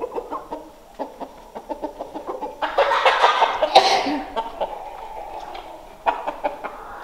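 Chickens clucking, with short irregular calls throughout and a louder, denser stretch of about a second and a half starting about three seconds in.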